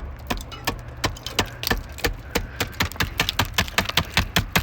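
Rapid series of sharp knocks and cracks, about four or five a second and coming thicker near the end: thick ice being chipped and broken off a frozen-over HVAC unit.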